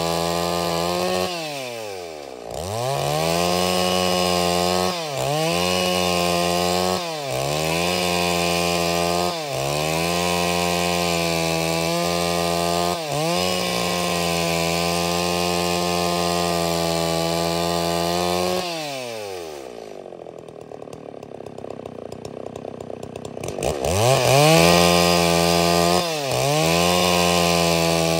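Stihl MS 381 two-stroke chainsaw running at high revs while ripping a log lengthwise into boards, its pitch dipping and recovering every couple of seconds. About two-thirds of the way in it drops to a low idle for a few seconds, then revs sharply back up.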